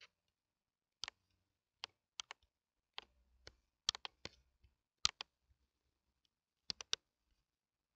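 Faint computer mouse and keyboard clicks, irregular, some single and some in quick pairs or threes.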